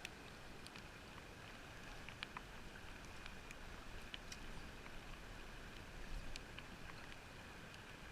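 Faint steady hiss of outdoor ambience, muffled by a watertight camera housing, with scattered small clicks and ticks every second or so.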